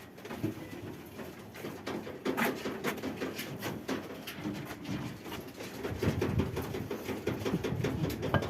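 Low cooing animal calls, louder near the end, over many small clicks and knocks from animals moving and feeding in their pens.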